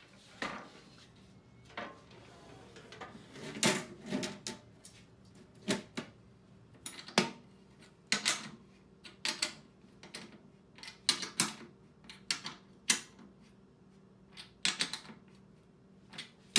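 Irregular sharp clicks and knocks of hand work on the aluminium truck bed parts, around twenty of them spaced unevenly, with short gaps of quiet between.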